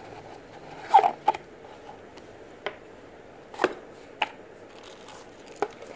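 A cardboard box being handled as a smart band is taken out of it: scattered light knocks and scrapes, about six in all, the loudest about a second in.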